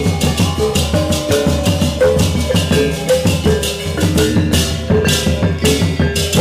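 Balinese gamelan gong ensemble playing a tabuh petegak: bronze metallophones and kettle gongs ringing in quick, pulsing patterns over a two-headed kendang drum. Bright crashing strokes come about twice a second, stronger from about four seconds in.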